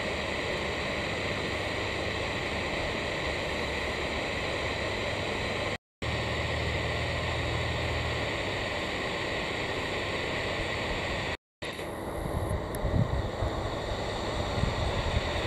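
Steady, even jet engine noise from a landing Boeing 767 cargo jet, broken twice by brief silences. In the last few seconds, wind buffets the microphone in gusty low rumbles.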